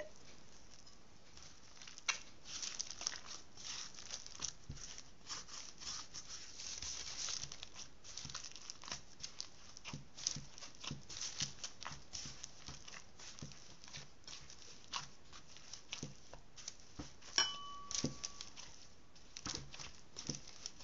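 Hands kneading shaggy, still-floury pizza dough in a bowl: irregular sticky squelches and crackles as the dough is pressed, torn and folded. A brief squeak sounds later on.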